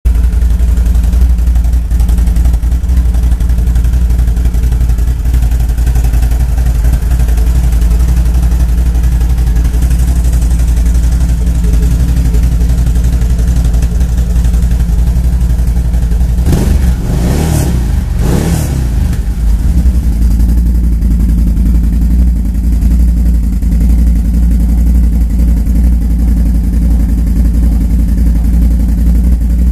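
Can-Am Outlander 1000 XMR ATV's V-twin engine running steadily through a dual slip-on exhaust, a deep, loud rumble. A little past halfway it is blipped twice in quick succession, then drops back to its steady running.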